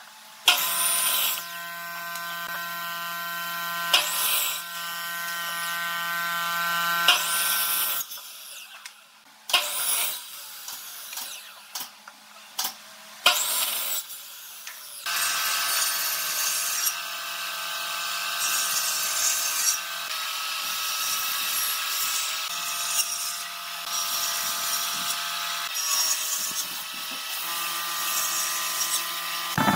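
A handheld electric power tool's motor running with a steady whine, starting and stopping abruptly. It runs for about seven seconds, pauses for several seconds of sharp knocks and clicks, then runs again through the second half.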